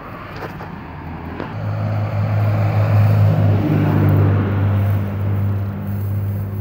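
A motor vehicle's engine running close by: a steady low hum that comes in about a second and a half in, is loudest around the middle, then eases off.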